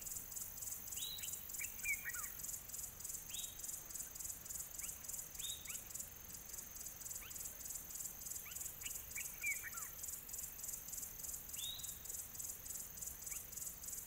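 Faint outdoor nature ambience: insects trilling high in a steady pulse of about three to four beats a second, with brief bird calls that fall in pitch now and then.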